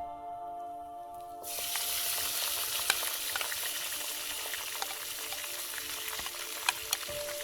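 Food frying in a hot pan: a sizzle that starts suddenly about a second and a half in and then goes on steadily, with a few small clicks and spatters.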